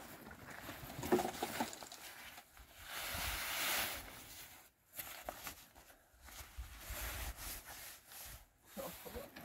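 Nylon fabric and flexing frame of a pop-up tent rustling as it is collapsed, bundled and carried, with a louder rush of rustling about three seconds in, and shoes scuffing on loose gravel.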